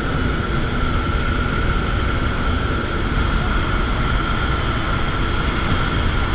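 Steady roar of a small jump plane's engine and the rushing air inside the cabin with the jump door open, with a steady high hum running through it.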